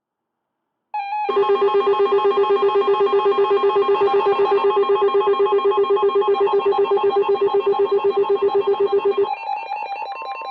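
Weather radio receiver's electronic alert alarm going off: a loud, rapidly pulsing ringing beep, about seven or eight pulses a second, that starts abruptly after a moment of silence. About nine seconds in the pattern changes, and a steady high tone joins near the end. This alarm marks an incoming warning.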